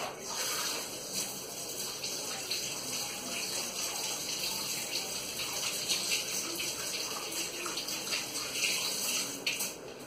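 Water running from a kitchen tap into the sink, a steady splashing rush that stops near the end.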